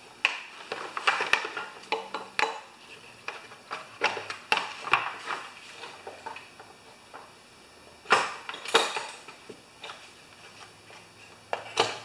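A plastic engine cover being handled and fitted back onto a Kawasaki lawn mower engine: irregular clicks, knocks and clatter, with the loudest pair of knocks about eight seconds in.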